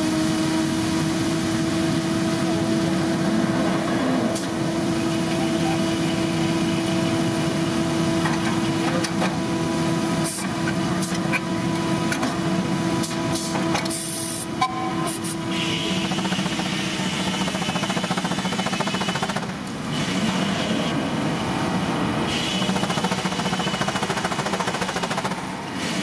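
Circular sawmill running as a log on the carriage is worked past the large blade: a steady mechanical din with a held tone that stops about two-thirds of the way through, and a few sharp clanks in the middle.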